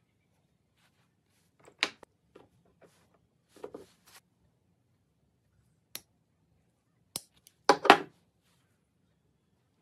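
Pliers and other small metal hand tools being handled and set down on a wooden workbench while a stainless steel pin wire is worked: scattered sharp clicks and clacks, the loudest a quick double clack about eight seconds in.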